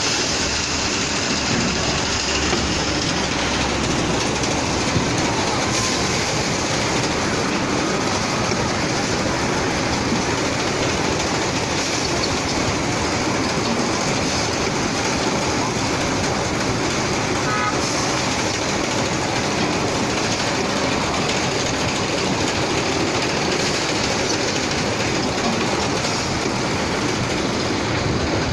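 Steady clattering rumble of grain-handling machinery running: a weighing-and-packing machine and belt conveyors bagging grain.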